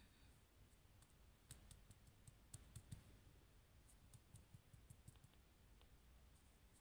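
Near silence with faint scattered clicks and light ticks in two loose clusters, one about a second and a half in and one around four to five seconds in.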